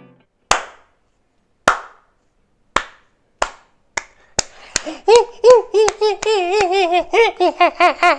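Hand clapping that starts with slow single claps and speeds up to fast clapping. From about five seconds in, warbling monkey-like hooting joins the clapping, its pitch wobbling up and down, in a mocking imitation of a monkey.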